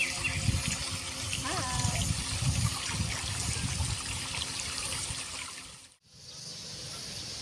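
Open-air ambience by a pond: a steady rushing, trickling water noise with irregular wind gusts on the microphone and a couple of short chirping calls. The sound drops out abruptly about six seconds in, then comes back.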